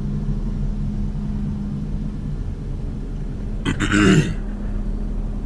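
Steady road and engine drone heard from inside a moving vehicle on the highway. About four seconds in there is a short grunt-like voice sound that falls in pitch.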